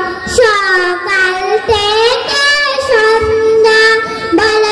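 A high solo voice sings an Islamic devotional song in long held notes that slide and bend between pitches, with short breaks between phrases.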